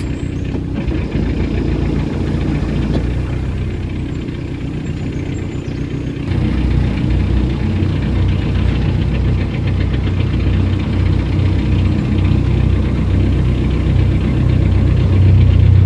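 Narrowboat engine running at tick over with a steady low throb, getting louder and heavier about six seconds in and again near the end.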